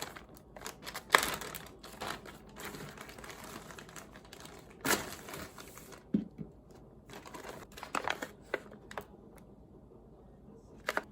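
Irregular crinkling and rustling with light clicks and taps, as food packaging and containers are handled in a kitchen.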